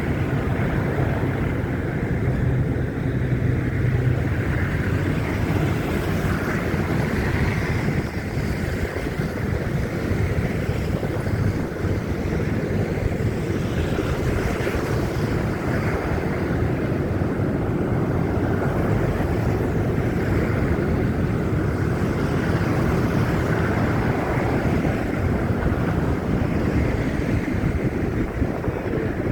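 Steady noise of wind blowing across a handheld phone's microphone, over a low rumble.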